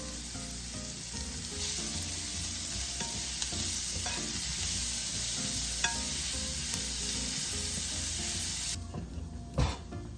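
Sliced zucchini and onion sizzling in a frying pan as they sauté, a steady hiss with a few small clicks. The sizzle drops away near the end, followed by a sharp knock.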